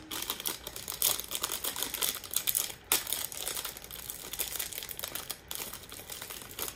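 Plastic blind-bag wrapper crinkling and crackling in the hands as it is pulled and torn open, a dense run of small irregular crackles.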